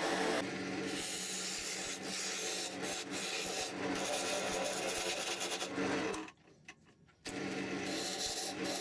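Wood lathe running with a tool cutting and rubbing against the spinning stabilized wood blank, over a steady motor hum. The sound drops out for about a second around six seconds in, then resumes.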